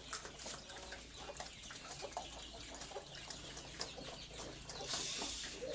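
Pigs chewing and smacking at their feed: a rapid, irregular run of wet clicks, with a short burst of hiss near the end.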